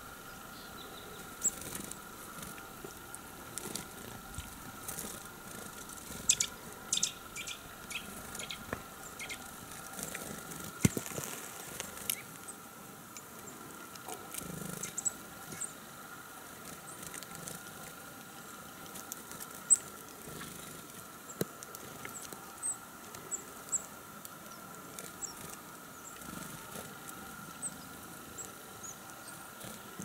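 Tits pecking at a hanging fat-and-seed feeder ball, a scatter of sharp taps that come thickest in the first half, with short, thin, high call notes from the tits later on.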